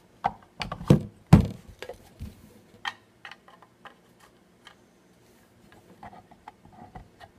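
Hard plastic fingerboard ramp pieces being handled and fitted together on a wooden table: a run of sharp clacks and knocks in the first second or so, then scattered light clicks.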